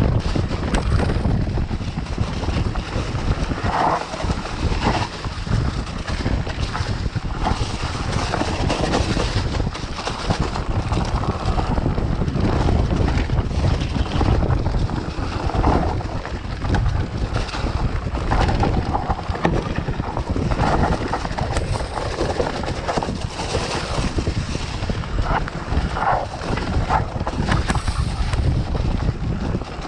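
Wind buffeting the camera microphone as a mountain bike rides along a trail, with many short irregular knocks and rattles from the bike over rough ground.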